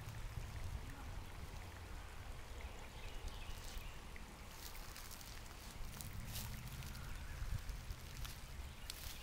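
Faint outdoor ambience: a steady low rumble with a few scattered sharp clicks.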